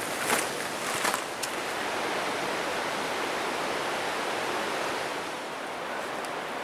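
Footsteps crunching on a gravel trail for the first second and a half, then a steady rush of flowing water from a mountain stream or waterfall, easing off slightly about five seconds in.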